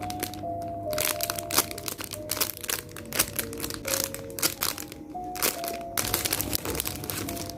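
Plastic packaging crinkling and crackling as it is handled, over background music with a simple melody.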